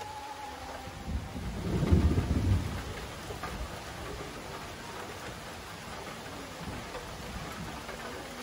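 Steady rain falling, with a deep roll of thunder that builds about a second in, peaks around two seconds and fades away by three seconds.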